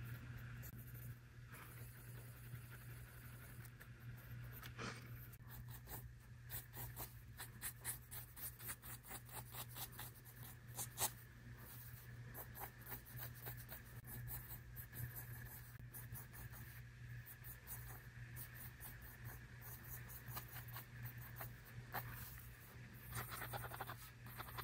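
Mechanical pencil sketching on a paper notepad: faint, quick scratching strokes, coming in dense runs from about six seconds in and again near the end, over a steady low hum.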